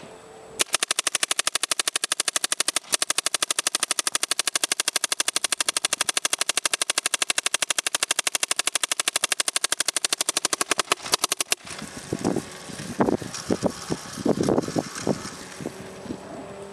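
Planet Eclipse Sniper Edition paintball gun firing a long, fast string of shots, more than ten a second, for about eleven seconds. The firing stops abruptly, leaving scattered irregular knocks and rustling.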